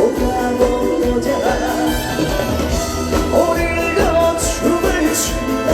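Trot song played live by a band over a stage sound system, with a steady beat and a melody line running over it.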